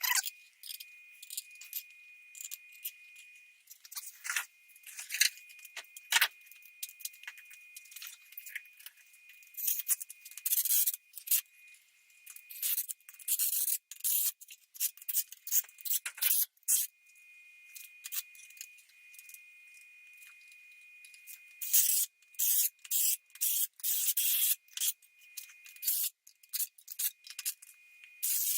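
Metal engine parts and tools being handled, clinking and scraping in quick irregular taps, with a faint steady high whine coming and going.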